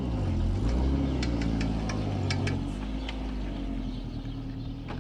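A vehicle engine running, its pitch rising and falling every second or two as it revs, with a few faint ticks.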